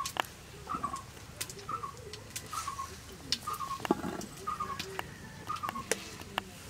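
A bird calls over and over in the background, a short two-part call about once a second. Over it come wet squeezing and scattered small knocks as soaked soya chunks are squeezed by hand and dropped onto a steel plate, the loudest knock about four seconds in.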